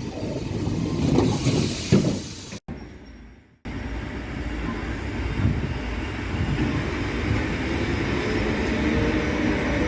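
EPL9T electric multiple unit running on the rails, a steady rumble of wheels and running gear. About two and a half seconds in the sound cuts off abruptly for about a second, then the running resumes and grows slightly louder.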